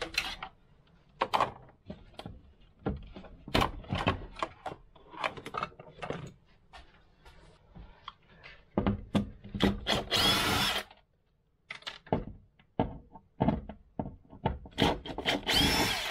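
Cordless drill/driver running in two short bursts, about ten and fifteen seconds in, backing out the screws that hold a wall-mounted charging station. Scattered clicks and knocks come from handling the tool against the wall.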